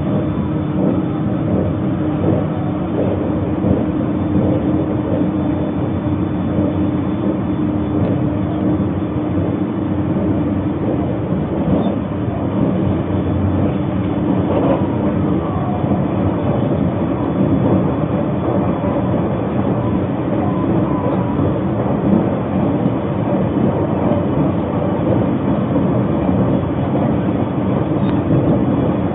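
Cabin running noise of a Narita Express electric limited-express train travelling at speed: a steady rumble with a constant low hum.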